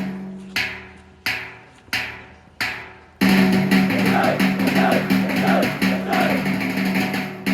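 Music with percussion: four sharp accented hits about two-thirds of a second apart, each dying away, then about three seconds in the full music comes in loud with drums.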